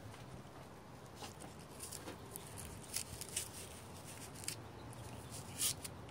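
Faint, scattered light clicks and scratches, about half a dozen, the sharpest near the end, over a quiet steady background.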